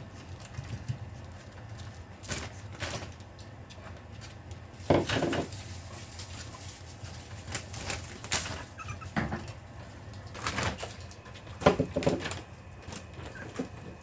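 Long-coat Chihuahua puppy letting out several short, stifled whimpers and squeaks, the noises that slip out of an excited dog holding itself back while made to wait for its food.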